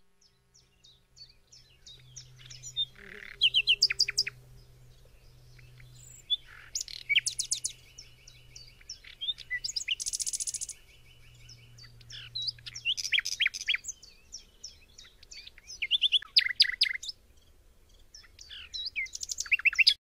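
Common nightingale singing: varied phrases of quick repeated notes, drawn-out whistles and a buzzy rattle, with short pauses between phrases.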